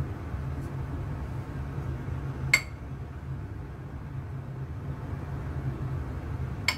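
Two sharp, ringing clinks of a small glass bowl of flour-and-water sealing paste, about four seconds apart, over a steady low hum.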